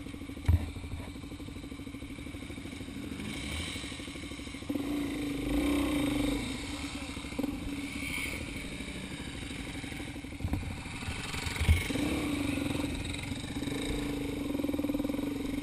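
Dual-sport motorcycle engine running, quieter at first, then louder from about five seconds in as the bike rides off along a dirt trail. A few short thumps come through, one near the start and two near the end.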